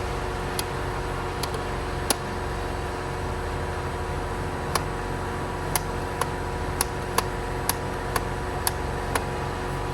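Fully automatic coffee machine running with a steady hum and a pulsing low buzz. Short sharp clicks come about every half second in the second half.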